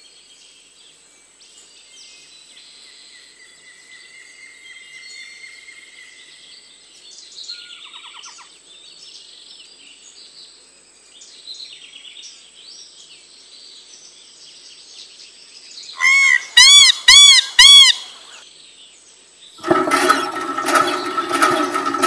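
Faint birdsong ambience of scattered chirps and tweets. About two-thirds of the way through comes a loud run of about five whistled bird calls, each rising and falling in pitch. Near the end a louder, busier sound with steady tones and clicks starts.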